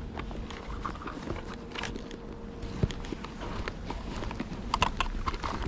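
Footsteps on rough ground: irregular clicks and crunches, with one sharper knock about halfway through and a faint steady hum in the first half.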